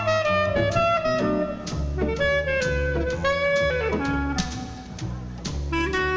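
Jazz combo playing, with a clarinet carrying the melody over bass and drums.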